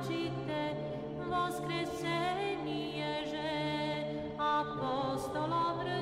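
Background music: a slow, unaccompanied sung melody with vibrato over a steady, low held drone.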